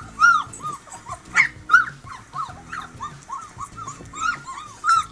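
Husky puppies crying in a rapid string of short, high whimpering cries, several a second, played back from an online video through a device speaker, with music running underneath.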